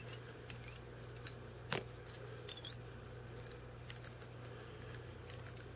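Faint scattered clicks and small high ticks of hands working fly-tying tools and materials at the vise, over a steady low hum.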